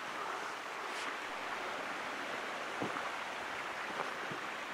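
Steady rush of flowing water, with a few faint knocks.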